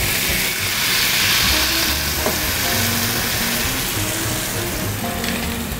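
Champagne poured into a hot frying pan, sizzling and bubbling as it boils up to deglaze the pan. The sizzle is strongest about a second in and eases gradually after.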